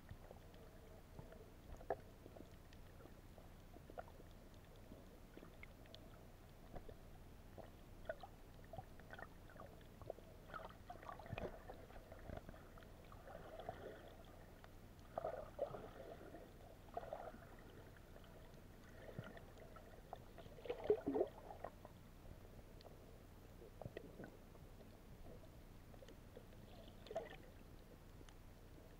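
Muffled underwater sound heard through a submerged camera: scattered faint clicks and a few short gurgling swishes of moving water, the loudest about two-thirds of the way in.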